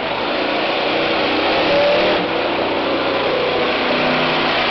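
Monster truck's engine running loud and steady as the truck drives, its pitch lifting slightly about two seconds in and settling again.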